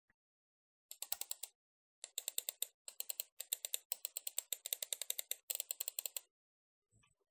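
Fast runs of sharp plastic clicks and clacks, many a second, in three bursts, from a computer mouse being worked while it rests on the keycaps of a mechanical keyboard.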